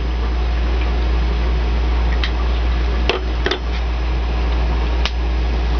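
Steady loud hum and hiss of the running HHO electrolyzer and torch rig, with a few sharp clicks about two, three and five seconds in.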